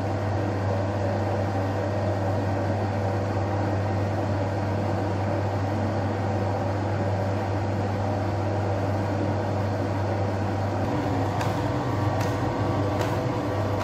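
Electric bowl dough mixer running steadily with a low hum as it kneads sangak dough. Near the end, a few short sharp clicks come about once a second.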